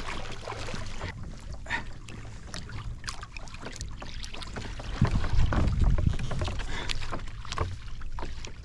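Water splashing and slapping at the side of a kayak where a small hooked tope is thrashing at the surface, over a steady wind rumble on the microphone that grows louder about five seconds in.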